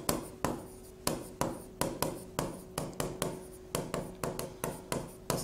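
A pen writing on an interactive whiteboard screen, making a steady run of light taps and short strokes, about three a second, as a word is written out.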